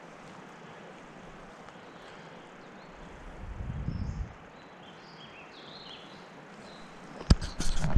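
Quiet forest ambience with a few faint, short bird chirps in the middle and a brief low rumble about three to four seconds in. Near the end come several loud footsteps as walking starts.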